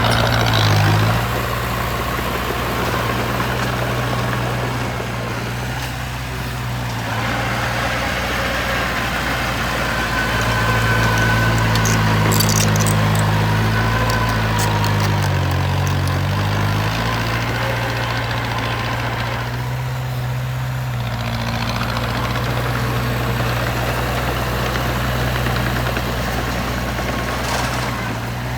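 Heavy construction machine's engine running steadily. About halfway through its pitch rises and then dips, with a few sharp clicks around then.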